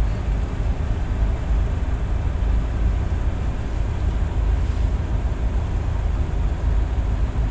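Tugboat diesel engines running steadily, a continuous low rumble with a faint steady hum above it.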